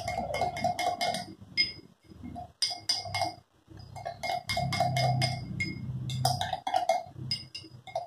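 Long metal spoon stirring inside a tall drinking glass, clinking against the glass again and again in quick irregular runs, each clink ringing briefly. It is mixing a chocolate base of cocoa powder, condensed milk and hot water.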